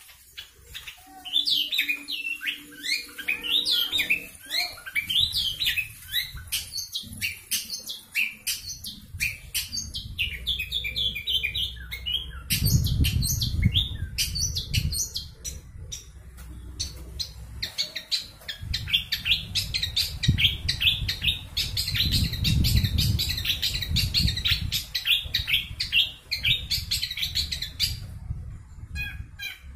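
Long-tailed shrike singing at full speed: a fast, nearly unbroken run of chirps and rolling trills, a mimicked medley of other birds' calls, that stops shortly before the end. Low rumbling noise swells twice underneath, about midway and again two thirds of the way in.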